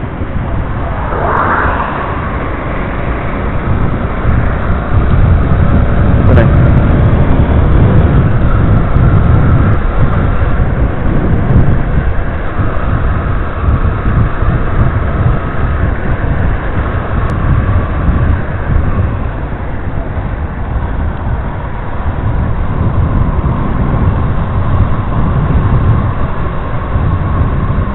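Yamaha Crosser 150's single-cylinder engine running while the motorcycle rides along, under a heavy rumble of wind on the microphone.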